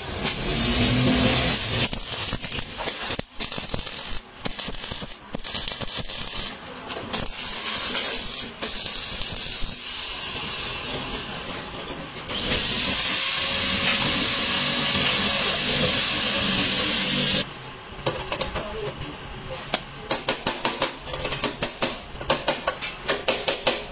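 Auto body repair workshop sounds: assorted knocks, then a steady hiss that starts and stops abruptly and lasts about five seconds, then rapid, evenly spaced tapping at several strokes a second.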